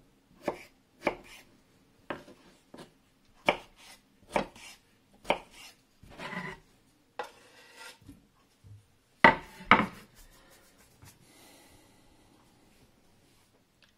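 Kitchen knife cutting a peeled potato on a wooden cutting board: sharp knocks of the blade on the wood at irregular intervals, about one a second, with a short scrape about six seconds in and the two loudest knocks close together between nine and ten seconds in.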